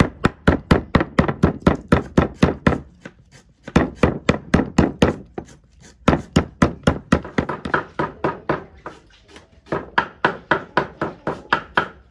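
Cleaver chopping raw snake meat and skin on a round wooden chopping block: quick, even strokes, about four or five a second, in several runs with short pauses between.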